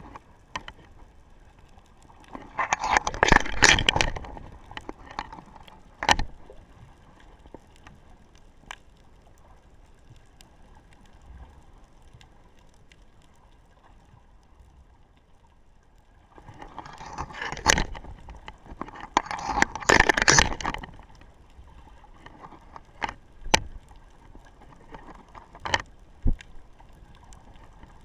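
Underwater sound picked up by an action camera lying on the seabed: a low steady hiss, two louder noisy swells a few seconds long (one a couple of seconds in, one past the middle), and scattered sharp clicks.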